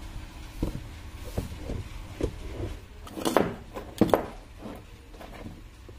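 Short clicks and knocks of wires, connectors and a switch being handled on a workbench amplifier setup as it is switched on, the two loudest a little past the middle, over a steady low hum.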